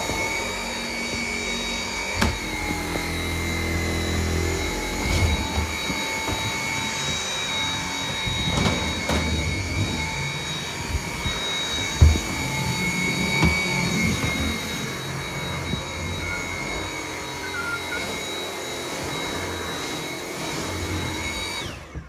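Dyson V7 cordless stick vacuum running with a steady high whine, broken by a few knocks, the loudest about twelve seconds in. Near the end it is switched off and the motor whine falls away.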